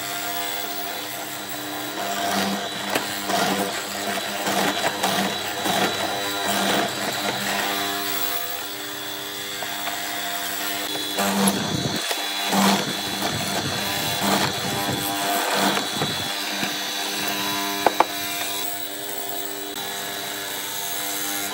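An electric power tool running with a steady motor whine, its loudness wavering as it works under changing load. A sharp click about eighteen seconds in.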